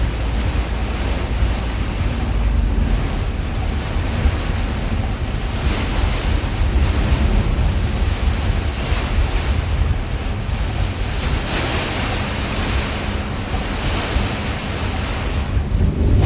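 Heavy rain pouring steadily, with strong wind buffeting the microphone.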